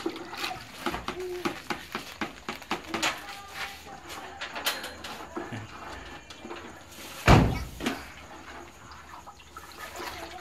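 A stick stirring salt water in a plastic bucket, with scattered clicks and knocks as it strikes the bucket's side and one loud knock about seven seconds in. The kitchen salt is being dissolved to make the brine for a water load bank.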